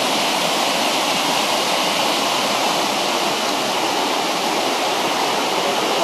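Shallow rocky river rushing over boulders in small whitewater rapids: a steady, even rush of water.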